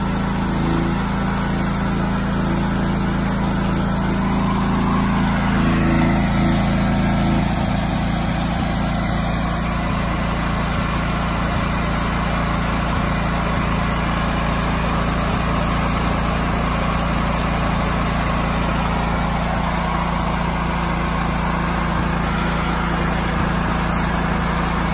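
Chin Shui 8000 W open-frame petrol generator running steadily while powering an inverter arc welder. Its sound shifts slightly about seven seconds in, then holds steady.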